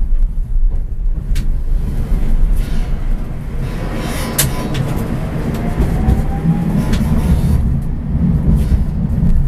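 Tram running along its track, heard from the driver's cab: a steady low rumble of wheels on rails, with a few sharp clicks and a faint whine rising in pitch about halfway through.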